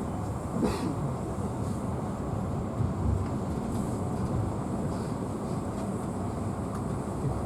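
Passenger railway carriage running along the track: a steady low rumble of wheels on rails, with a few irregular knocks, the strongest about three seconds in.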